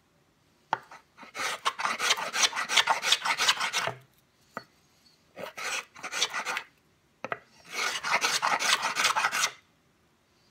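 Small boxwood luthier's finger plane cutting shavings from a wooden board in rapid short back-and-forth strokes, a quick scraping rasp. It comes in three bursts separated by pauses, and a sharp knock comes just before the first and the last burst.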